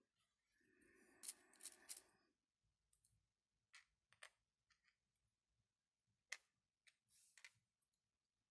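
Plastic parts of a 3D-printed mechanical counter being handled and taken apart: a short scraping rattle with three sharp clicks about a second in, then a few faint, scattered clicks.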